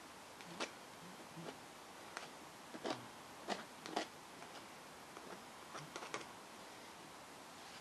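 Metal palette knife dabbing and scraping thick acrylic paint onto a stretched canvas: a faint scatter of short, irregular ticks and taps.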